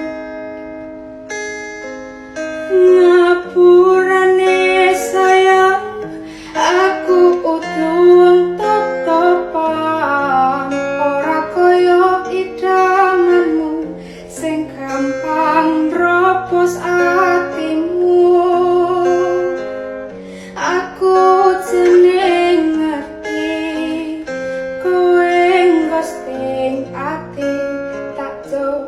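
A voice singing a melody with held, wavering notes over plucked guitar accompaniment with a bass line.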